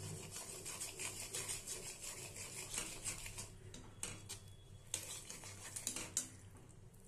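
Spatula stirring a simmering potato curry in a metal kadai, scraping and knocking against the pan in repeated strokes.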